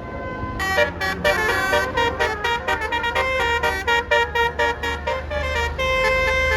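Bus 'Basuri' telolet horn, a multi-tone musical horn, playing a fast run of notes that ends in a held chord near the end, over a low steady rumble.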